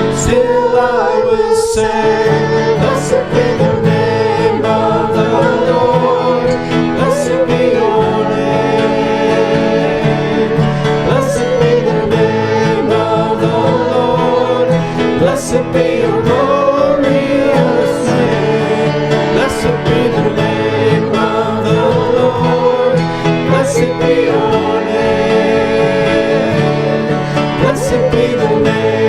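A hymn sung by a voice with acoustic guitar and other plucked strings accompanying, steady through the whole stretch.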